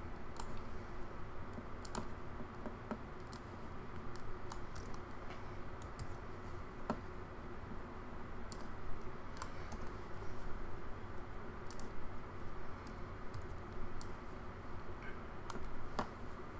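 Scattered, irregular clicks and keystrokes from a computer keyboard and mouse being worked, over a faint steady hum.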